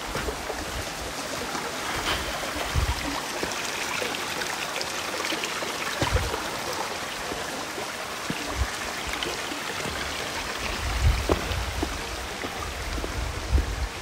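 A rainforest creek running: a steady rush of flowing water, with a few short low thumps.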